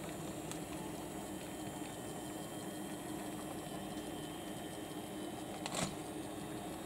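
Steady whir of a small battery-powered toy train motor as the train rolls along plastic track, with one sharp click shortly before the end.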